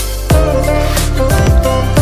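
Background music with a melody and a steady beat. The music thins at the start and comes back in with a deep drum hit about a third of a second in.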